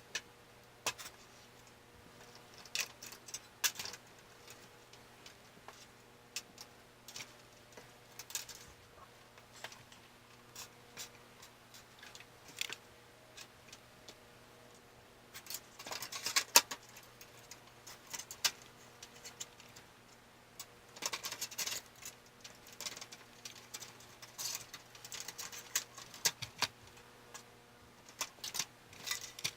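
Irregular clicks, taps and rustles of computer parts and tools being handled while a PC is assembled in its case, with a faint steady hum underneath. The loudest cluster of clicks comes about halfway through.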